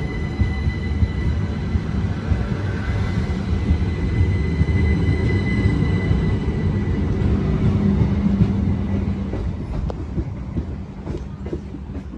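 Southern electric multiple-unit train running past the platform: a steady low rumble of wheels on rail with a thin, steady electric whine from the traction equipment. The sound fades near the end, with a few light clicks from the wheels.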